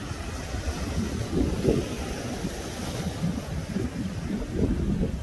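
Sea surf washing over a rocky shore, with wind buffeting the microphone in uneven gusts of low rumble.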